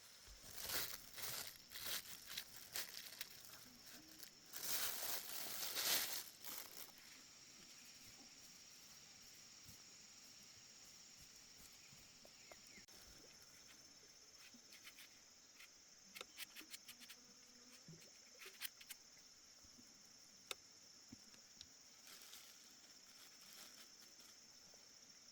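Insects trilling steadily at a high pitch, with bursts of rustling and crinkling in the first seven seconds and scattered light ticks after that.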